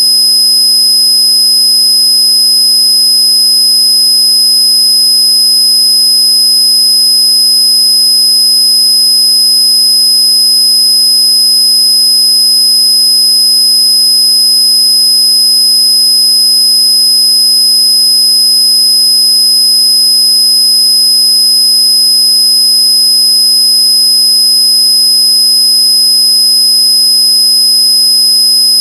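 Loud, unchanging electronic tone: a low buzz with many overtones under a shrill high-pitched whine. It is a synthetic noise track meant to annoy noisy neighbours.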